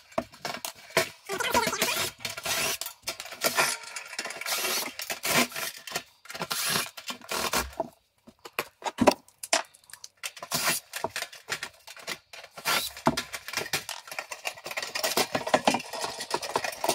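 Sheet-metal housing of a dryer heating element being unscrewed and pried open by hand: irregular metallic clinks, scrapes and rattles, with a brief lull and a single sharp clank about nine seconds in.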